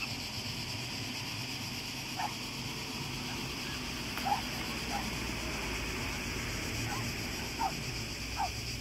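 Steady high-pitched chorus of cicadas buzzing in the summer scrub, with about six short, falling animal calls scattered through it.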